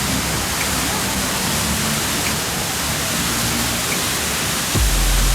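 Steady, loud roar of the Skógafoss waterfall, a dense hiss spread across all pitches. Near the end a deep bass note of music cuts in.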